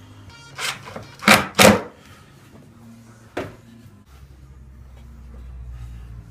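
Sharp clacks and knocks as bar clamps are taken off a pine tote box and the box is handled, the loudest two close together about a second and a half in, one more a couple of seconds later. A low rumble comes in near the end.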